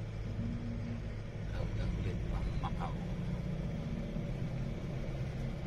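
Vehicle engine and road noise heard from inside the cab while driving: a steady low hum whose engine note shifts a little in pitch.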